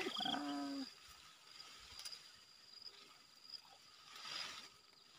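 A brief drawn-out voice, then faint outdoor background with a steady high-pitched insect drone.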